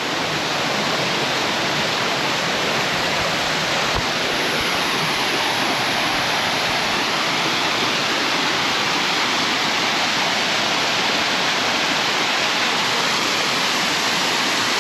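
Waterfall pouring steadily: a dense, unbroken rush of falling water.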